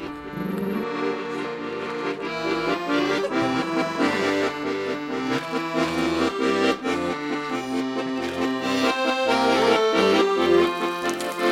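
Background music: a steady tune of held notes over a regular, bouncing bass line.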